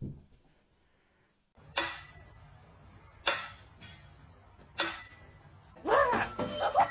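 A small bell struck three times, about a second and a half apart, ringing on between strikes. A short rising-and-falling call follows near the end.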